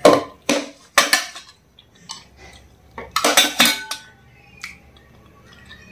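Steel spoon scraping and clinking against a small stainless steel plate as the last of the food is scooped up, then a cluster of clattering as the steel plate and spoon are set down about three seconds in, with a brief metallic ring.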